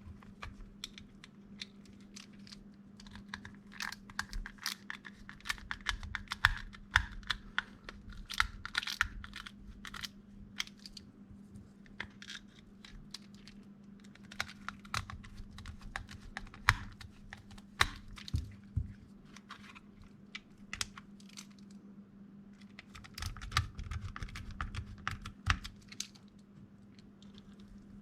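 Screws being driven into a 3D-printed plastic housing and small parts handled: sharp plastic clicks and taps with stretches of scraping, busiest about a third of the way in and again near the end, over a faint steady low hum.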